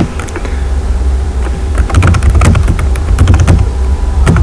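Computer keyboard keys tapped in an irregular run of clicks, over a steady low hum.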